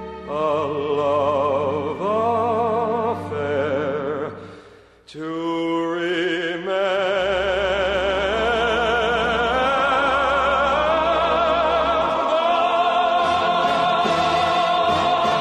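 Operatic singing with strong vibrato over orchestral accompaniment. One phrase ends and the sound dips about five seconds in, then the voice comes back with long held notes.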